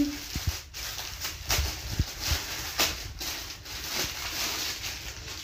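Clear plastic polythene bag crinkling and rustling as a folded shirt is worked out of it, with a few sharper crackles.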